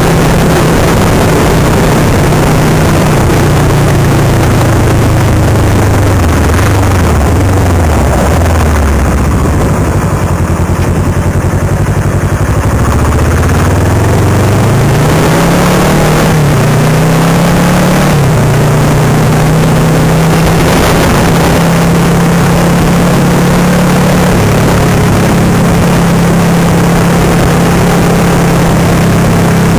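Kawasaki Versys 650's parallel-twin engine on the move: its pitch falls as the bike slows for a turn, stays low for a few seconds, then rises in two steps as it accelerates away and holds steady at a cruise.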